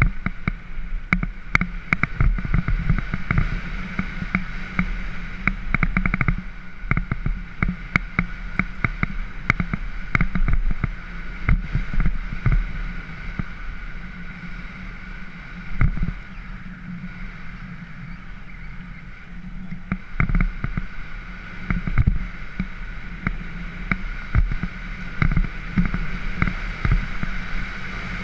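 Mountain bike rolling fast down a rough dirt trail: a steady rumble of tyres on gravel with frequent rattles and knocks as the bike and camera jolt over bumps. It goes smoother and quieter for a few seconds around the middle.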